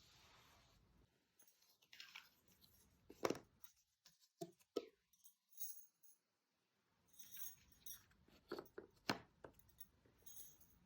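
Cardboard jigsaw puzzle pieces being handled and pressed into place, making faint scattered clicks and taps with a short pause in the middle.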